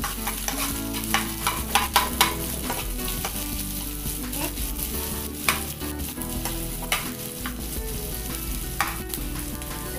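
Sliced onion and chopped garlic sizzling in hot oil in a nonstick frying pan as they are stirred with a metal spoon. The spoon clicks and scrapes against the pan often in the first couple of seconds, then only now and then.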